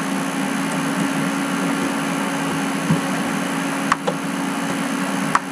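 Steady hum and hiss of background machine noise, with two sharp clicks from editing at the computer: one about four seconds in and one near the end.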